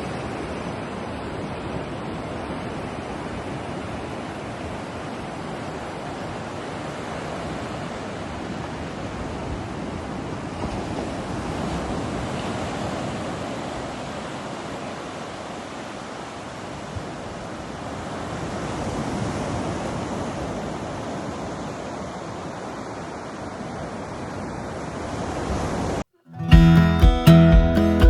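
Ocean waves washing in with wind, a steady rushing that swells and eases slowly. Near the end it cuts off abruptly and strummed acoustic guitar music starts.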